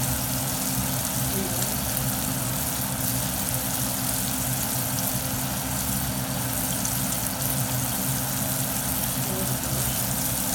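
Food sizzling steadily in a frying pan, under a constant low hum.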